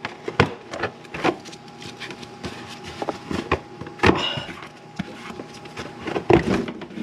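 Loose plastic splash shield under the engine being moved and pushed about by hand: scattered clicks, taps and rustling plastic, irregular and short.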